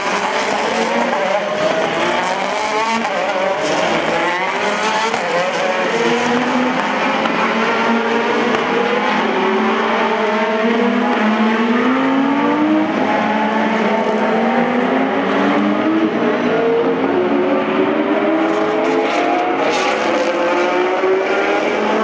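Ferrari GT2 race cars' V8 engines at full throttle, several cars overlapping. Each engine note climbs and then drops back at each upshift, over and over.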